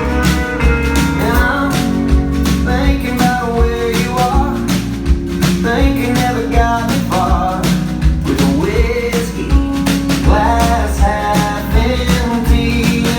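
Country-rock band playing a song: a steady drum beat, bass and guitars, with a gliding lead melody line over them.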